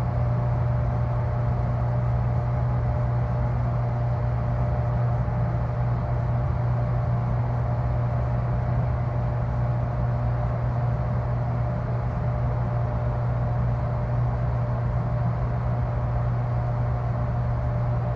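Deep, steady mechanical drone of a freezer unit: a strong low hum with a faint higher steady tone and a hiss above it, unchanging throughout.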